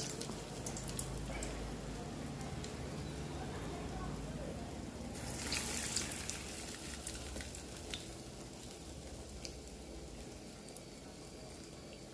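Urad dal vadas deep-frying in hot oil: a steady sizzle with scattered crackles, flaring louder about five seconds in and then slowly dying down.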